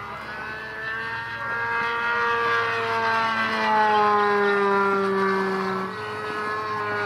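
OS 65LA two-stroke glow engine on a radio-controlled model airplane flying past, a steady buzzing note that grows louder toward the middle and then fades. Its pitch slides slowly down as the plane passes.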